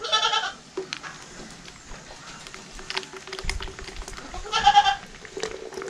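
A goat bleating twice, two short calls about four and a half seconds apart. Faint clicks and knocks come in between.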